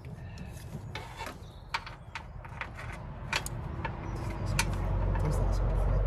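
Scattered metallic clicks, taps and rubbing as a universal battery clamp and its hooks are worked into place in a car's engine bay, with a low rumble building in the last couple of seconds.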